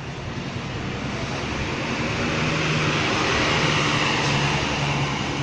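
Bus driving past, its engine hum and tyre and wind noise swelling to a peak about three seconds in, then fading.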